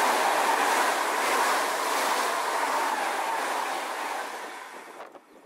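High-speed electric passenger train passing at speed: a loud rushing noise of wheels on rail and air, fading away in the last couple of seconds and cutting off about five seconds in.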